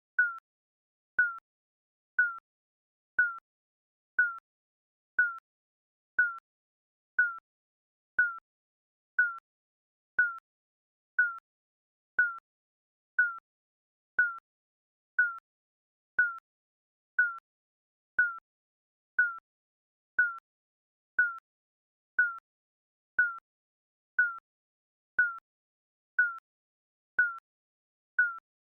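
Digital countdown timer beeping: a short, high electronic beep with a slight dip in pitch, repeating evenly once a second.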